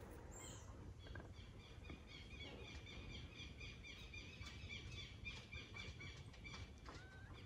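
Faint outdoor ambience with a bird chirping rapidly in the background, several short high chirps a second, fading out near the end.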